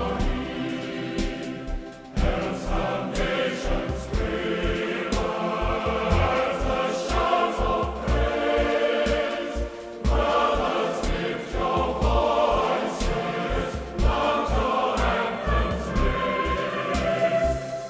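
Choral music: a choir singing in long held phrases, with short breaks between them.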